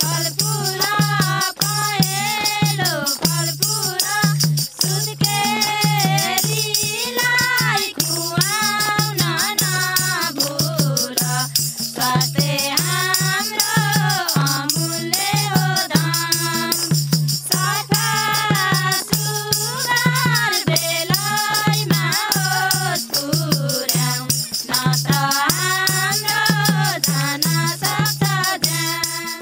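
Music: a melody over a steady low drone, with a fast rattle keeping the beat. It stops abruptly at the end.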